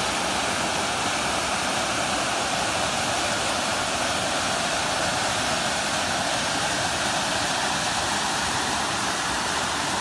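Small waterfall on a brook, water pouring over an old weir and splashing onto rocks with a steady rushing sound.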